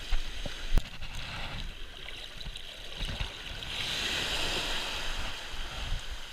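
Small waves washing onto a beach, with a wash of surf swelling up about four seconds in, and wind buffeting the microphone. A single sharp click comes just under a second in.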